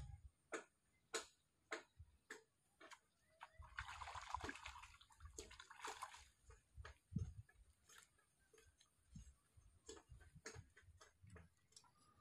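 Faint splashing as a hooked fish is pulled thrashing out of the pond, starting about four seconds in and lasting a couple of seconds, over a faint, even series of sharp clicks a little under two a second.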